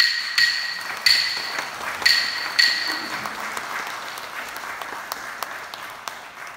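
Audience applause that swells and then fades away, with a few sharp, ringing clacks, the last a little over two and a half seconds in.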